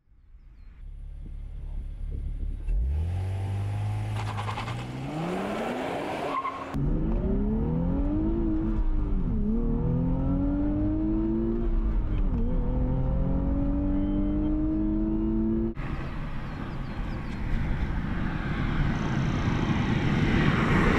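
Nissan Fairlady Z's 3.0-litre V6 twin-turbo engine revving hard under acceleration in a few edited cuts: the note climbs steeply, then climbs again with two brief dips in pitch. After that comes a rising rush of engine and road noise that swells to a loud peak near the end as the car drives past.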